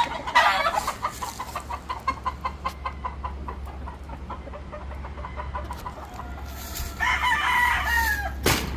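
Gamefowl roosters crowing and clucking: a crow at the start, a quick run of clucks over the next couple of seconds, and another crow about seven seconds in that drops in pitch at its end, followed by a sharp knock. A steady low hum runs underneath.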